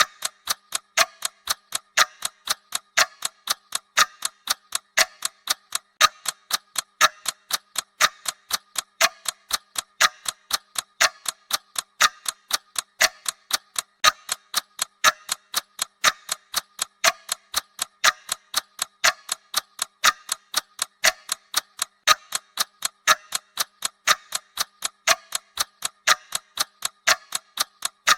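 Countdown-timer ticking sound effect: crisp, even clock-like ticks, several a second, running steadily like a ticking time bomb.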